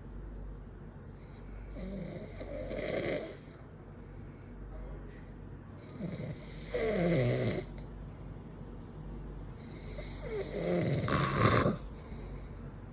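A man snoring: three long, rattling snores about four seconds apart, the last the loudest.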